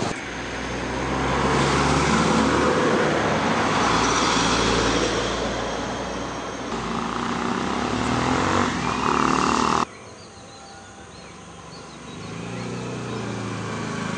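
Strong wind rushing and gusting over the microphone, with a vehicle engine running low underneath. About ten seconds in, the sound cuts off suddenly to a quieter stretch where an engine hum continues.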